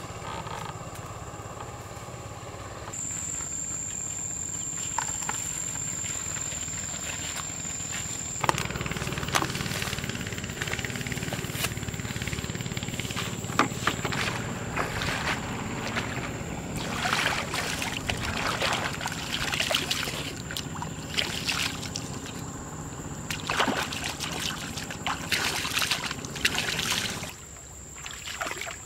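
Footsteps and rustling through tall grass, then water sloshing and splashing as a man wades into shallow water. A steady high-pitched tone runs underneath.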